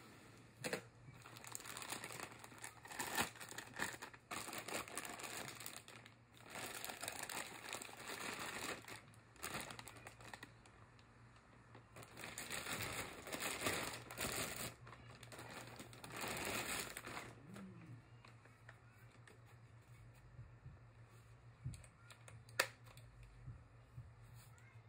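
Clear plastic packaging bag crinkling and rustling in irregular bursts as it is handled and pulled off a power tool. The rustling dies down after about 17 seconds, and a single sharp click follows near the end.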